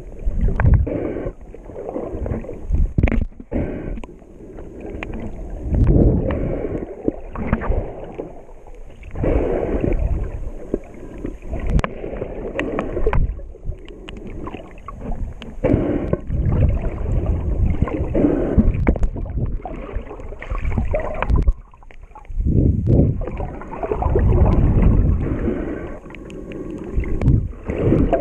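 Muffled underwater water noise from a camera held underwater while snorkeling: water sloshing and rushing over the microphone, swelling and fading every second or two.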